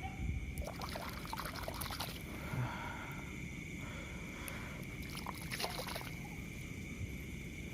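Night insects trilling steadily at one high pitch, with faint trickling and sloshing of water and a few small clicks.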